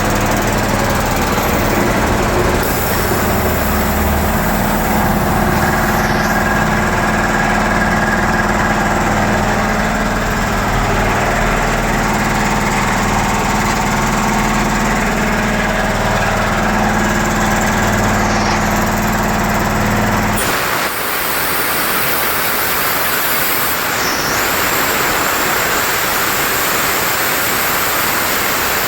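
A United 5 HP air compressor, with a 3.7 kW four-pole electric motor and a 160-litre tank, running with a steady hum. About two-thirds of the way in, the motor and pump cut off abruptly and a loud, steady hiss of escaping compressed air takes over.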